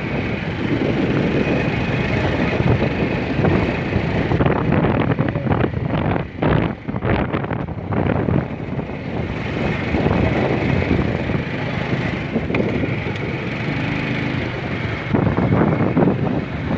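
A vehicle's engine running steadily as it travels along a road, with wind buffeting the microphone.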